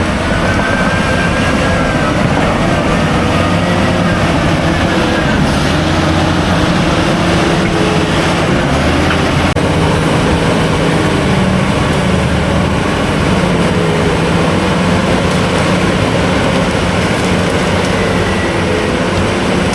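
Heavy earthmoving machine's diesel engine running steadily, with a faint wavering whine above the engine note in the first few seconds.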